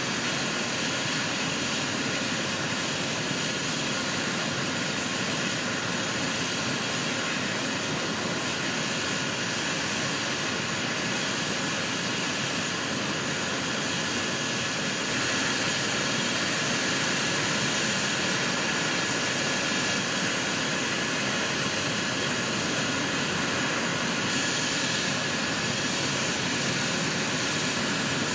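Medical helicopter's turbine engines running steadily on the ground: a constant rushing noise with a high steady whine, a little louder from about halfway through.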